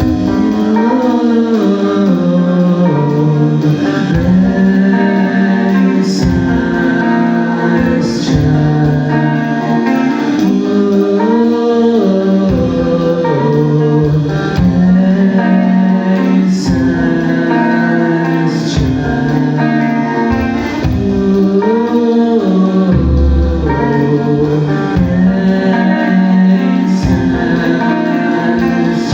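Rock band playing live: guitars, bass and drums in a steady beat, with a voice singing at times.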